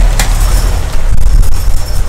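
VW T3 Syncro's fuel-injected petrol flat-four engine idling with a heavy, unsteady low rumble, in an engine that its owner says still runs poorly. A short click comes just after the start.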